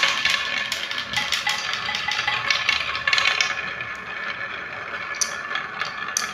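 Marbles rolling and clattering down a toy marble run track, a dense continuous rattle of many small clicks that thins out about two-thirds of the way through, with a few sharp separate clicks near the end.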